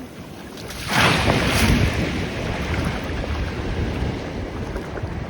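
Wind buffeting the microphone by the sea, rising suddenly about a second in to a loud, gusty rumble that stays up.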